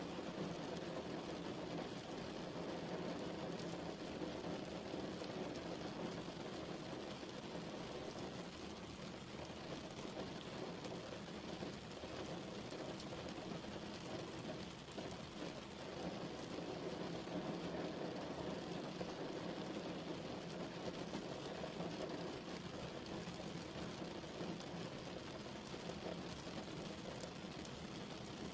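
Steady rain falling, a continuous even wash of noise.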